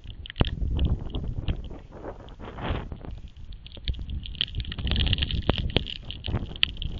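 Hurricane winds buffeting the microphone in uneven rumbling gusts over a steady hiss of rain, with scattered sharp knocks as rain or debris strikes the camera.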